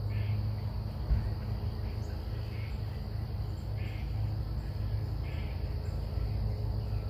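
Outdoor background: a steady low hum, with a faint short chirp repeating every second or so.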